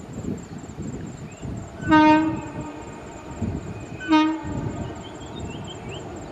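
Train horn sounding two short blasts about two seconds apart, each about half a second long, with low buffeting of wind on the microphone underneath.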